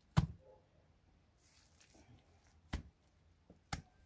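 Dry mud clods being broken off a crumbling mud wall by hand: three sharp knocks, the first and loudest just after the start, the other two near the end, with a faint crumbling hiss between.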